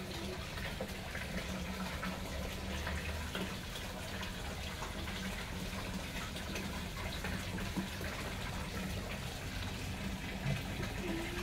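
Water pouring steadily into a fish pond, a continuous splashing rush.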